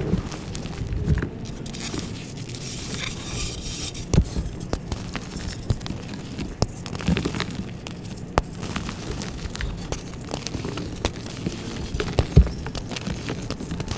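Hands crushing and squeezing blocks of reformed gym chalk in loose powder: soft crunching and crumbling with scattered sharp crackles and a few dull thumps, the loudest about four and twelve seconds in.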